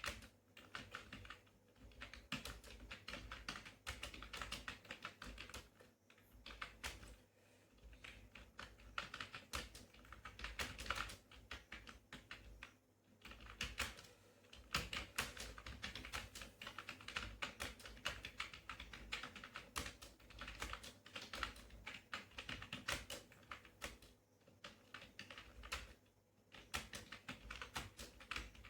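Computer keyboard typing: a fast, continuous stream of keystroke clicks during a timed typing test, broken by brief pauses a few times.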